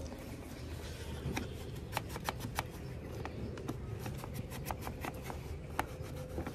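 Damp microfiber rag wiped over the hard plastic trim of a cloth car seat: rubbing with a quick, uneven run of sharp clicks and ticks, over a low steady rumble.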